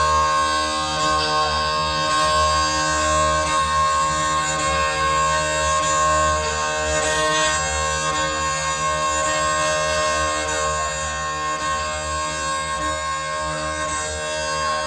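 Live minimalist drone music: many sustained tones layered together and held at unchanging pitches, a loud, steady sound of amplified instruments.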